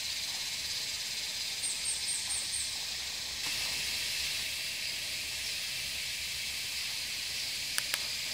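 Tropical forest ambience: a steady high hiss of insects, with a quick run of about five high chirps some two seconds in and two sharp clicks near the end.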